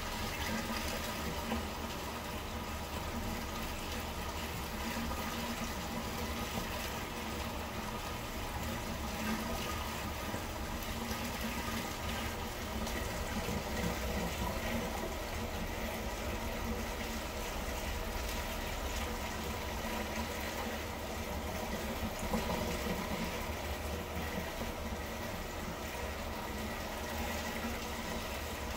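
Aquarium filter running: a steady trickle and wash of circulating water with a faint constant hum.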